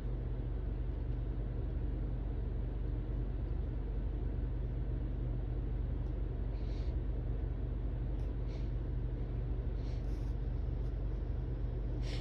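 Steady low hum or rumble with a few faint short breaths about halfway through and later, while the person waits for the next sneeze to come.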